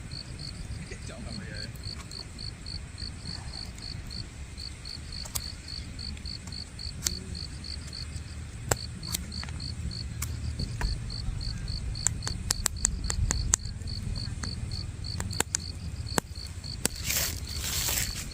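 An insect, likely a cricket, chirping steadily in short high pulses, about three a second. Scattered sharp clicks come through the middle, and a brief hiss comes near the end.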